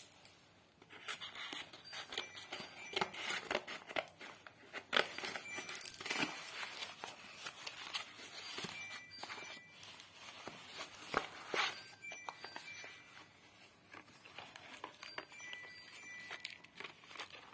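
Cardboard flaps and paper wrapping crinkling and tearing as they are pulled open by hand, with the rustle of small cardboard packets being handled. The crackling is busiest through the first two-thirds and quieter near the end.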